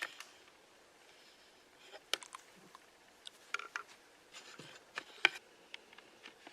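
Faint, scattered clicks and light rustling, small handling sounds close to the microphone, with two sharper ticks about two and five seconds in.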